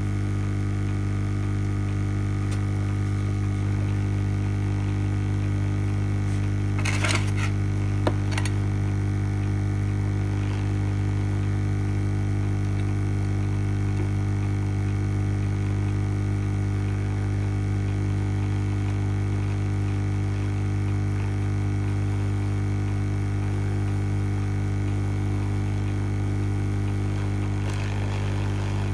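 Lukey 852D+ hot air rework station's handpiece blowing steadily while heating an IC off a circuit board: a constant hum with a strong low tone and a stack of steady higher tones. A couple of short clicks about seven and eight seconds in.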